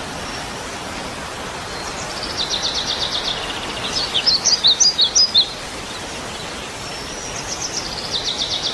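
A songbird singing high, rapid trills and chirps in three phrases, over a steady hiss of background noise.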